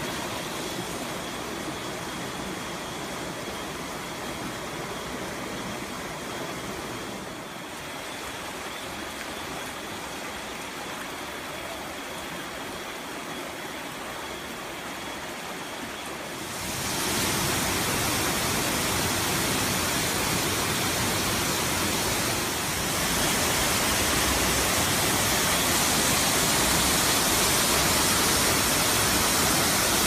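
Rushing water of a rocky mountain stream and Hiji Falls, a steady hiss. It gets clearly louder about halfway through as the falling water comes close.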